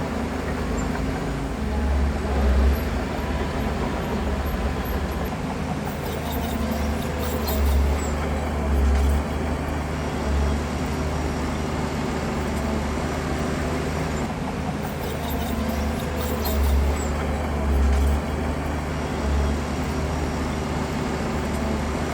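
Heavy diesel earthmoving machinery engine running steadily, with repeated brief swells in its deep rumble.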